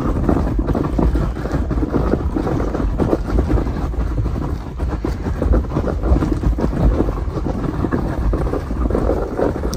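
A trash can being hauled over thick, coarse gravel: a continuous loud rattling rumble, with footsteps crunching on the stones.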